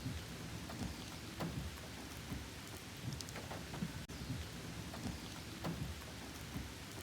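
Steady rain falling, with scattered drops striking close by as short ticks.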